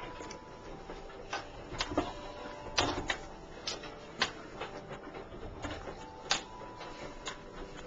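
A German Shorthaired Pointer's claws tapping and scratching at a running washing machine: about a dozen irregular sharp clicks over the machine's faint steady whine.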